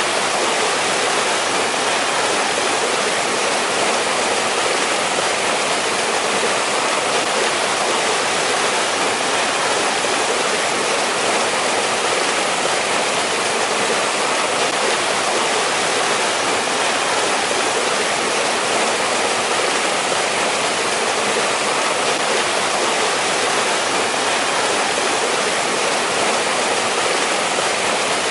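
A mountain valley stream rushing and splashing over rocks, a steady, unbroken water noise.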